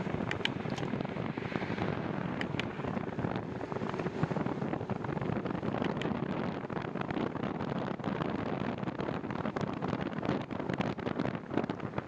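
Wind buffeting the microphone of a moving bicycle, an even steady rush, with a few faint clicks.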